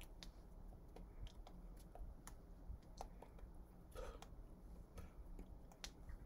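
Near silence: room tone with faint, irregular clicks and taps of hands meeting and brushing as a person signs.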